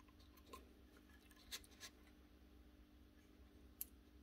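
Near silence, with a few faint clicks and rubs as the plastic motor-and-fan housing of a Milwaukee M18CV cordless vacuum is turned over in the hands.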